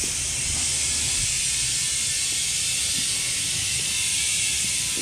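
Steady hiss of compressed air being fed into a heavy truck tire whose bead has not yet sealed on the rim, air escaping around the bead.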